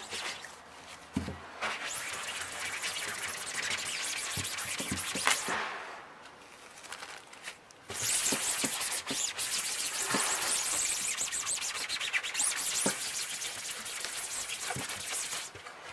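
Paper napkin rubbed back and forth over the stretched mesh of a screen-printing frame, wiping off ink softened by solvent: a scratchy rubbing in two long spells, with a pause about six seconds in.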